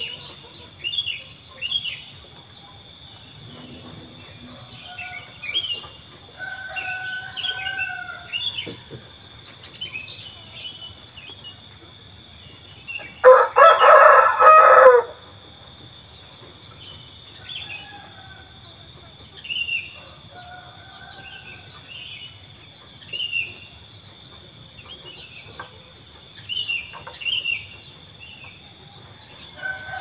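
A rooster crows once, loud and about two seconds long, midway through. Steady high insect trilling and scattered bird chirps and calls run throughout.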